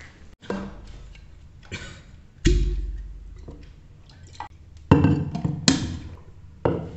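Knocks and clunks of a stainless-steel mug and a water bottle being handled and set down on a desk: about half a dozen sharp knocks, one with a short low ring about two and a half seconds in and the loudest two a little before and after five and a half seconds.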